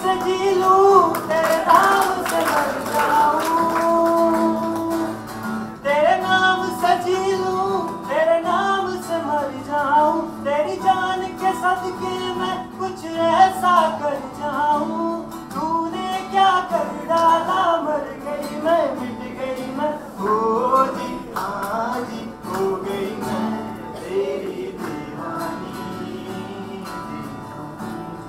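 A man singing a melodic, gliding vocal line into a handheld microphone, accompanied by his own acoustic guitar.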